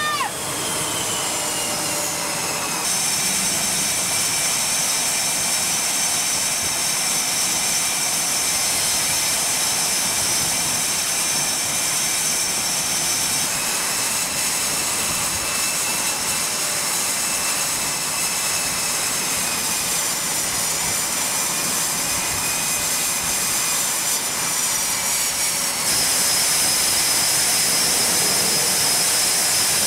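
Jet engines of F/A-18 Super Hornets running on a carrier flight deck: a steady rush of noise with several high turbine whines. The whines jump in pitch abruptly a few times.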